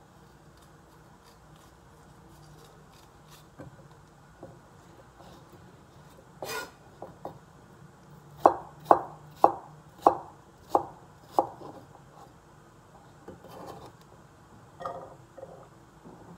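Kitchen knife chopping through cucumber onto a cutting board. After a few quiet seconds, one knock, then a run of six sharp chops about two a second, then a few softer cuts near the end.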